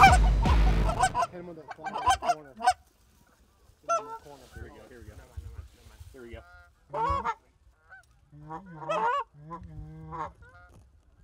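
Canada geese honking and clucking in short, separate bursts with pauses between. The first second holds the tail of a loud low rumble.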